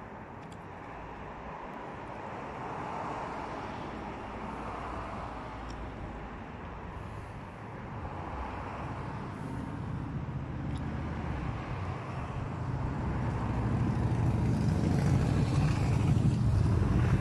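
Outdoor background noise: a steady rumble of passing road traffic, swelling louder near the end.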